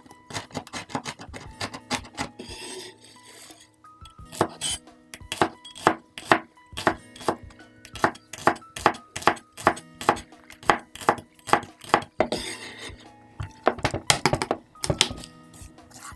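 Steel cleaver chopping against a wooden cutting board in steady, even strokes, about two to three chops a second, cutting chilies and then spring onions. Twice there is a short scrape of the blade across the board. Background music plays underneath.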